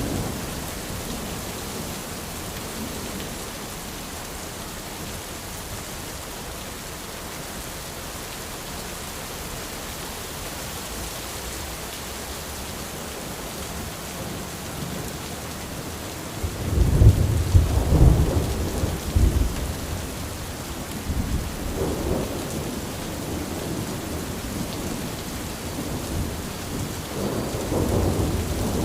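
Steady rain falling on an umbrella canopy. A little over halfway through, a low roll of thunder rumbles in loudly, and further fainter rumbles come near the end.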